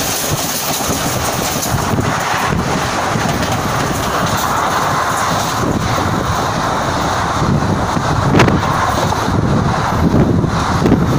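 Two trains passing each other at speed on adjacent tracks: a steady, loud rush of wheels on rails and wind, with rail clatter and a sharp clack about eight seconds in. Heard through the open window of the moving train.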